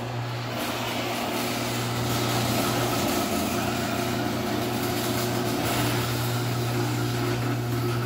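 LiftMaster garage door opener motor running steadily with an even hum as it drives the sectional garage door along its tracks, showing the newly programmed remote works.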